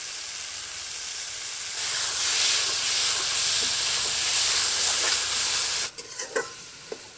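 Vegetable pieces and spices frying in mustard oil in a metal karai, sizzling steadily while a metal spatula stirs them. The sizzle gets louder about two seconds in and cuts off abruptly near the end, followed by a few light knocks.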